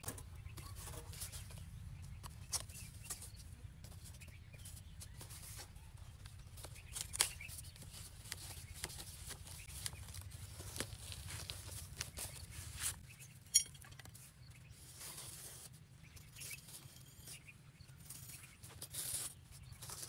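Scattered scrapes, rustles and light knocks of a cardboard sheet and sandy soil being handled over a small dug hole, over a low steady rumble that stops suddenly about two-thirds of the way through.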